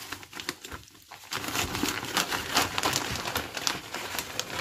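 Plastic vacuum-sealer bag crinkling and rustling as it is handled, an irregular crackle that grows busier about a second and a half in.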